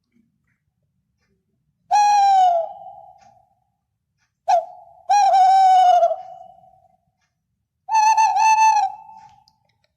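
Three loud, clear animal calls, each under a second and dropping slightly in pitch, with an echoing tail; a short sharp call comes just before the second.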